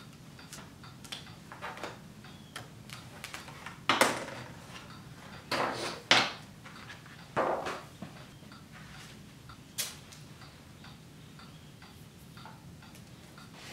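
A picture frame being opened by hand. Small clicks as its back is worked with a small tool, then a few louder scrapes and knocks as the frame and its backing board are lifted and handled, and one sharp click about ten seconds in.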